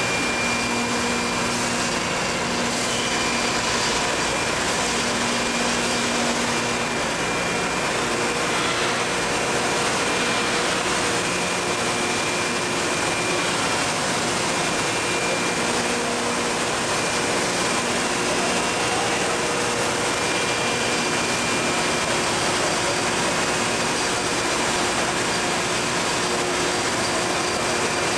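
Dry ice production machine running, a steady even hiss and hum with a few faint steady tones that come and go, while dry ice streams out of its chute.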